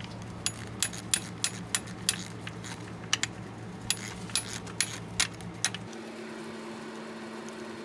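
Sharp metallic clicks and clinks of a hand tool working on a bolt, about fifteen irregular clicks over five seconds, as the engine oil drain bolt of a 2015 Honda CRF250R is worked loose. A low steady hum runs underneath and changes tone at about six seconds.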